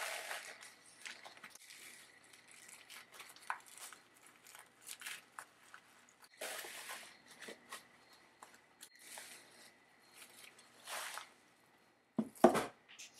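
Packaging being handled and torn open: rustling and crinkling in short bursts, with a couple of louder thuds near the end.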